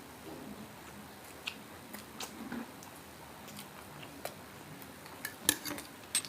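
Close-up mouth sounds of someone eating: chewing and biting, with scattered sharp clicks and a quick cluster of them about five and a half seconds in.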